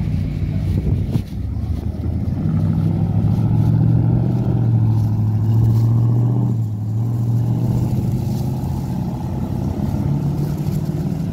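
Classic cars' engines running as the cars drive out past one after another: a strong low engine note builds about two seconds in and holds, breaks off sharply about six and a half seconds in, then a lower engine note carries on.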